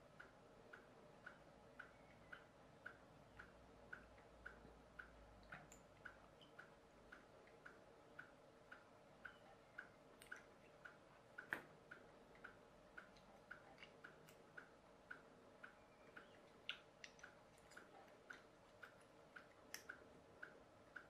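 Faint, very regular ticking, about two ticks a second, with a few louder, irregular clicks of small plastic motor mounts being handled.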